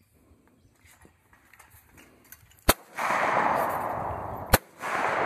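Two shotgun shots at clay targets, a little under two seconds apart, each followed by about a second and a half of loud rushing noise.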